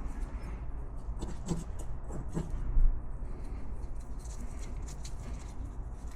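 Faint scratching and small clicks of hand work on metal and plastic car parts, with one dull knock about three seconds in, over a steady low hum.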